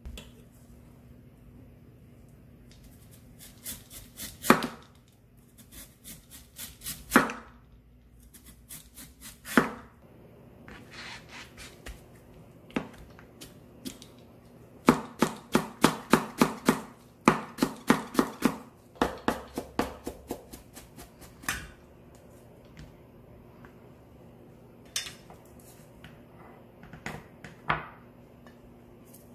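Kitchen knife cutting a Korean radish on a plastic cutting board: sharp strokes as the blade goes through the firm radish and knocks the board, in irregular runs with pauses, the quickest run about three strokes a second.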